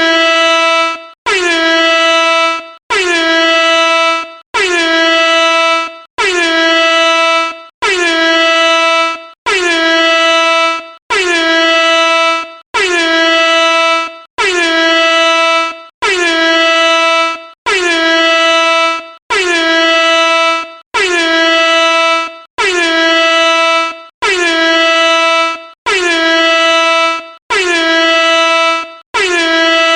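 Air horn blasting over and over, each blast lasting well over a second with only a short break before the next, about one every second and a half. Each blast dips slightly in pitch at its start, then holds one steady, loud tone.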